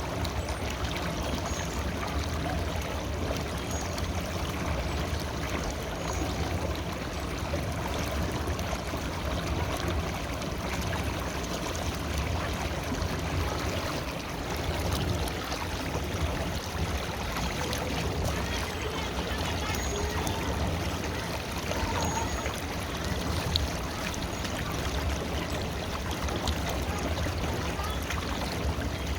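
River water flowing in an even, steady rush.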